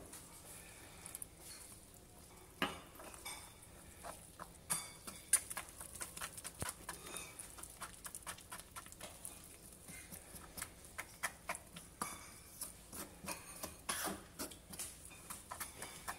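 Metal spoon clinking and scraping against a ceramic bowl while gram flour and water are beaten into a thick batter: irregular light clicks, sparse at first and busier from about two and a half seconds in.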